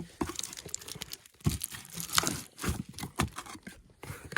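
Firework packaging crinkling and rustling as it is handled, in short irregular crackles.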